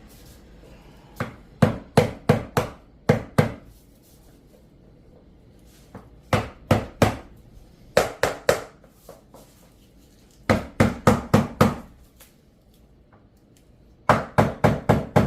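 Hammer tapping laminate floor planks in quick runs of four to seven sharp knocks, five runs with short pauses between, driving the boards together to close and tighten the joints.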